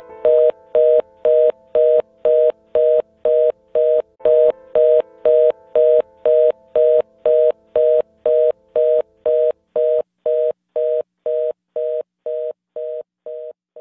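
Telephone fast-busy (reorder) tone: a two-note beep repeating about twice a second, fading out gradually toward the end. It signals that the call cannot be connected.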